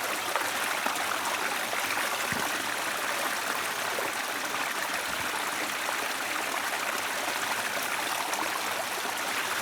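River water running steadily, an even, unbroken sound of flowing water.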